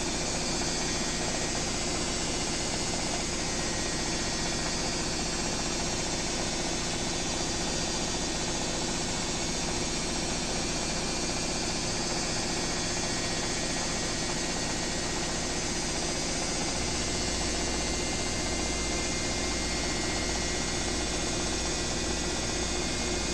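Washing machine on its spin cycle, running with a steady mechanical whir. About two-thirds of the way through, a deeper low hum comes in as the drum starts picking up speed.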